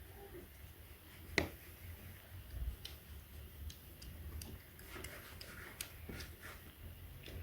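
Light, irregular clicks and taps of small hard objects being handled, with one sharper click about a second and a half in.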